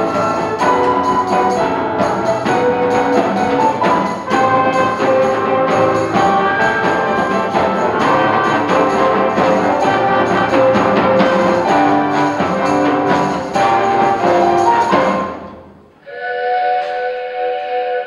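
Orchestral music with brass, percussion and xylophone-like mallet notes, stopping about fifteen seconds in, followed by a single held chord.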